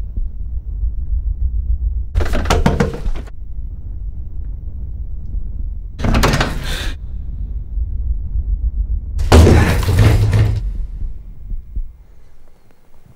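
Three loud crashing bursts, each about a second long and roughly four seconds apart, over a low rumble that fades out near the end.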